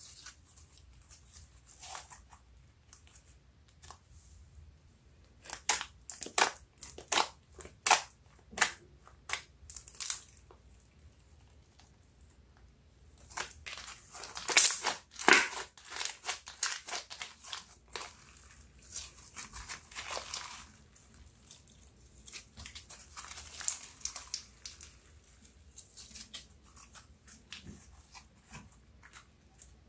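Hands stretching, folding and pressing a slime with lipstick and eyeshadow mixed into it, giving sticky clicks and crackling pops in uneven runs, thickest about six to ten seconds in and again around fifteen seconds.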